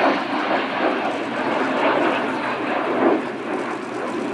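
Jet noise from two Fouga CM.170 Magister trainers, each powered by twin Turbomeca Marboré turbojets, flying a formation display: a steady rushing sound without distinct tones that swells slightly a few times.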